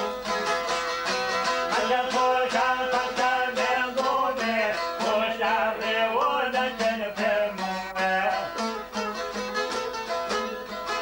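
Two long-necked Albanian lutes, a çifteli and a sharki, played together in a fast, dense run of plucked and strummed notes in a traditional folk tune.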